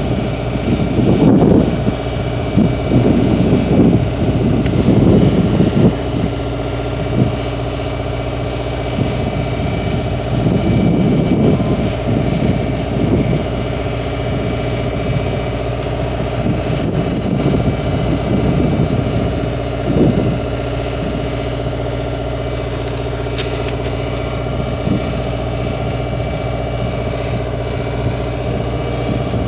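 A steady engine-like hum holding several even tones, with gusts of wind buffeting the microphone during roughly the first half.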